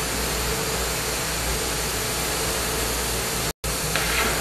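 Glassblowing bench torch burning with a steady hiss, a faint steady hum underneath. The sound drops out for an instant near the end.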